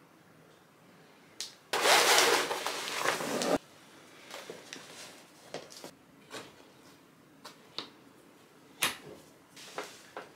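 Loud rustling noise for about two seconds, cut off abruptly, then scattered light clicks and knocks of objects being handled.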